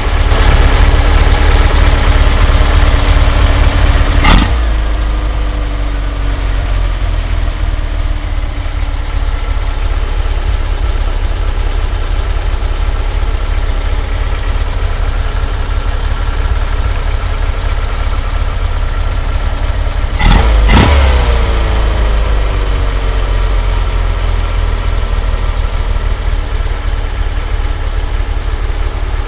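VW T25 1600 CT flat-four engine idling warm after a six-mile run. Twice, about 4 and 20 seconds in, there is a sharp bang-like transient, after which the engine note falls back and settles.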